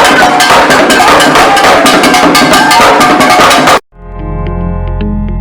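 Background music with a fast, busy drum beat that cuts off abruptly near the end. A quieter track with held bass notes and plucked tones follows.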